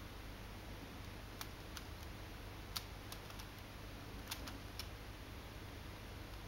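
A handful of scattered light plastic clicks and taps from a hand-held LEGO Technic gearbox as its parts are moved, over faint steady hiss.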